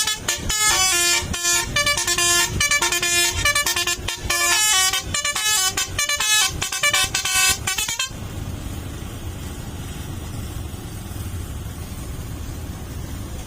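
A tour bus's basuri musical air horn plays a fast tune of short, changing notes, then cuts off suddenly about eight seconds in. After that only the low rumble of the bus is left.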